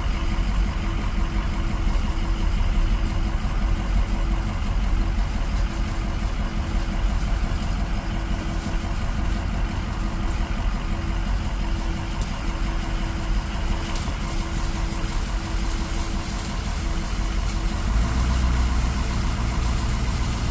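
Ford dually pickup carrying a truck camper, its engine running at low speed while it creeps along a rough dirt trail, heard from inside the cab as a steady drone of engine and tyre noise.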